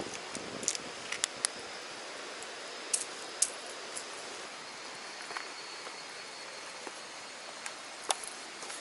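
A few small, sharp clicks of metal fishing tackle being handled, a lure and its hardware knocking together between the fingers. They come mostly in the first half, with one more near the end, over a steady outdoor hiss.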